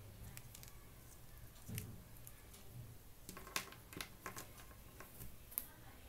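Faint handling noise of a wired in-ear earphone cable being unwound, with scattered small clicks and taps as the plastic earbuds and plug touch the wooden desk; the two sharpest clicks come about three and a half and five and a half seconds in.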